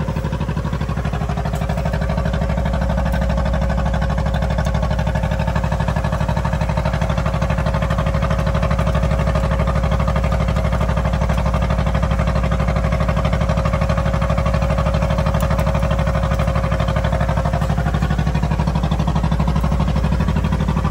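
Fishing boat's engine running steadily under way: a loud, even drone with a rapid regular pulse, and a thin steady hum above it that fades out near the end.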